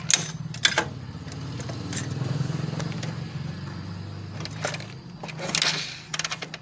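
Hero Ignitor's 125 cc single-cylinder engine being kick-started: several knocks as the kick lever is stamped and the engine turns over without firing, over a steady low hum. It does not catch because no spark shows at the removed plug, a sign of an ignition wiring fault.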